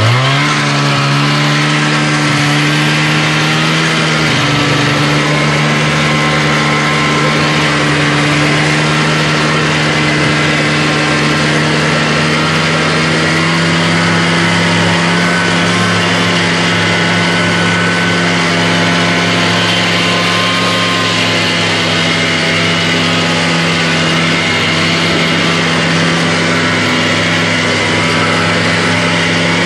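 Snowmobile engine running steadily under load while towing sleds on a rope, with an even engine note that shifts slightly in pitch about four seconds in.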